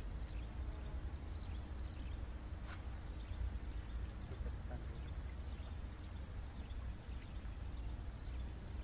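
Steady high-pitched insect drone, over a low wind rumble on the microphone, with a sharp click nearly three seconds in.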